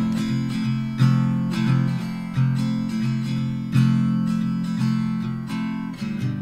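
Background music: an acoustic guitar playing chords, each struck sharply and left to ring.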